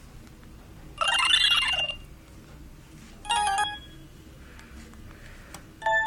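Samsung SGH-D900 ringtones played through a Nokia 6230i phone's speaker. A brief swooping electronic sound comes about a second in, then a short burst of notes around three seconds, then a melodic ringtone starts near the end.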